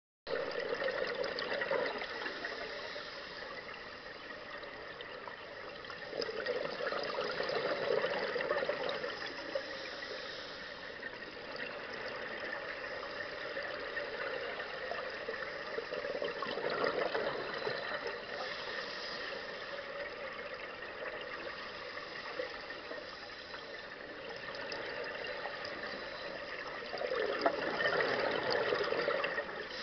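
A scuba diver's regulator breathing heard underwater: four bubbling rushes of exhaled air, each a few seconds long and roughly ten seconds apart, over a steady underwater hiss.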